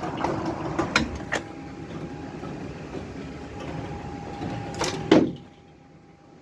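Hail coming down in a steady hiss, with a few sharp clicks of hailstones striking hard surfaces. Near the end the sound drops away abruptly.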